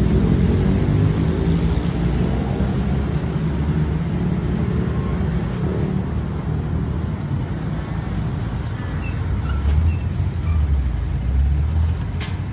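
Road traffic noise: a motor vehicle engine running close by, its pitch shifting up and down in the first few seconds, with a heavier low rumble from about nine and a half to twelve seconds in.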